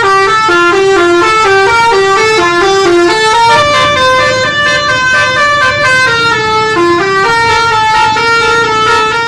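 Bus telolet horn, a multi-tone musical horn set, playing a loud melody: quick runs of short stepped notes, then slower held notes. It cuts off abruptly at the end.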